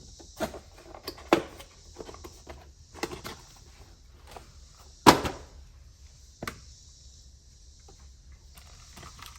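A handful of scattered knocks and clicks, the loudest about five seconds in, over a steady high hiss.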